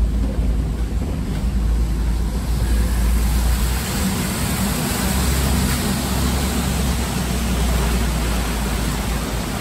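Safari ride truck driving along a bumpy track: a steady low engine and road rumble under a rushing noise.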